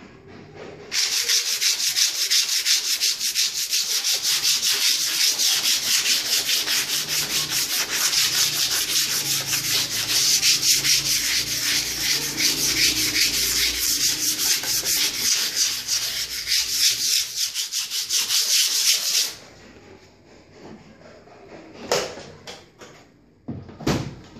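Hand sanding with an abrasive pad on an engraved metal wheel hub, fast back-and-forth rubbing strokes that wear black paint off the raised carving. It stops abruptly, and two short knocks follow near the end.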